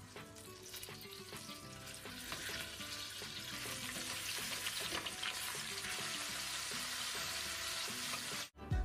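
Chicken pieces frying in melted butter in a stainless steel pot: a crackling sizzle that grows louder over the first few seconds, then holds steady and stops abruptly near the end.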